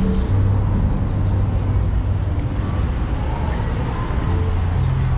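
Road traffic: a vehicle engine running steadily with a low hum, over general street noise.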